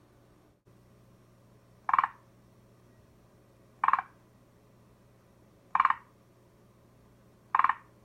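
Forest green tree frog (Zhangixalus arboreus) calling: four short, pulsed croaks spaced about two seconds apart.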